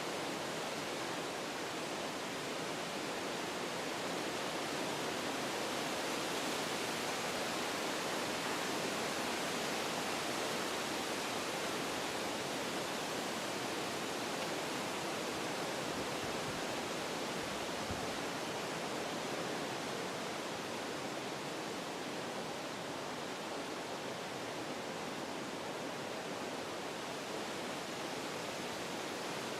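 Wind blowing through forest trees: a steady rushing that swells a little in the first third, then eases back.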